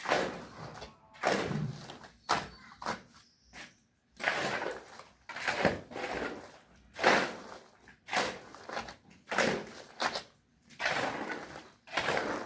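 Building work on a construction site: an irregular series of knocks and scrapes, roughly one every second, each cutting off quickly.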